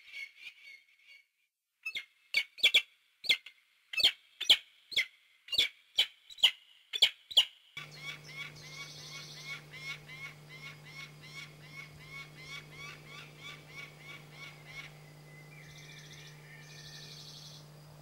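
Peregrine falcon calling. About two seconds in comes a series of loud, harsh calls, roughly two a second. From about eight seconds the calls turn quieter and faster, with a steady low hum underneath.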